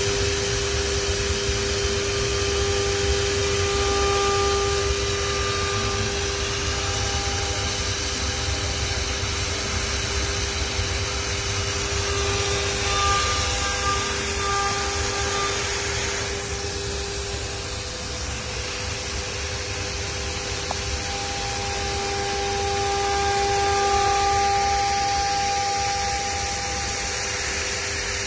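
Aluminium-profile CNC milling machine running: a steady whine with higher tones that come and go over a haze of machining noise.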